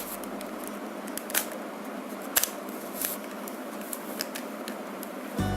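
Rubik's cube being turned by hand: irregular sharp clicks and rasps of the plastic layers rotating.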